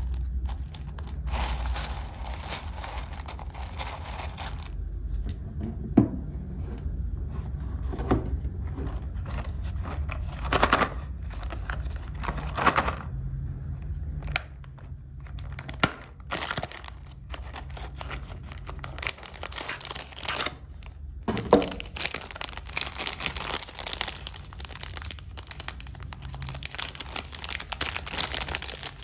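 Hands handling snack packaging: plastic and foil wrappers crinkling and tearing, in patches early on and densely over the second half, with a few sharp knocks along the way.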